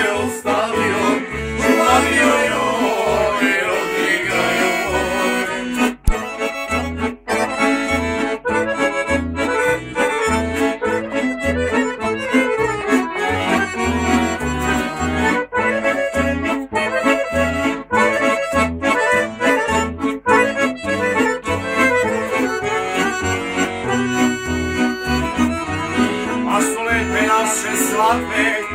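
Two piano accordions playing a traditional folk tune together, with a small plucked string instrument strumming along; the accordion bass keeps a steady beat of low notes.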